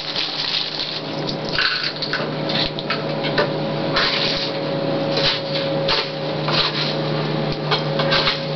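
Plastic baby walker shifting on a vinyl floor, its wheels and toy tray clattering in irregular clicks, over a steady hum and hiss.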